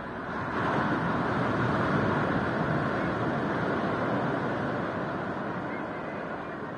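Ocean surf: a wave breaking and its whitewater washing up the beach, the rush swelling about a second in and slowly easing off.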